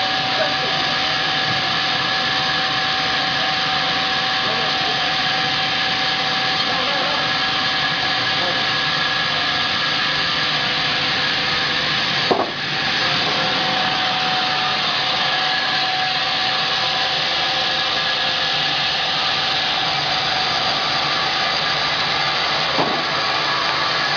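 Sawmill saw running and cutting through a log: a steady, even saw noise with a constant whine, and a single short click about halfway through.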